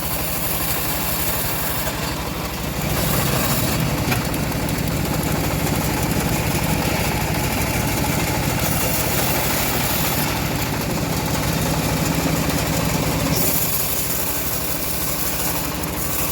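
Homemade engine-driven bandsaw mill running steadily, growing louder and fuller about three seconds in and easing back down near the end.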